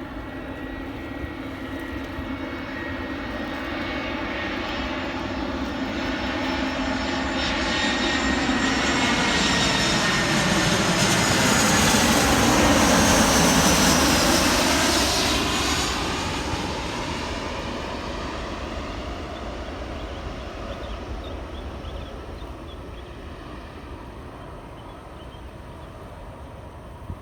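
Airbus A320 jet airliner on landing approach passing close by: the engine noise swells to a peak about halfway through, with a high whine on top, then drops in pitch and fades away as it passes.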